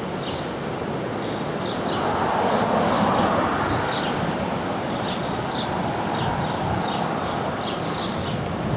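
Steady rush of the flooding South Platte River pouring over a submerged walkway, with short, high bird chirps every second or so.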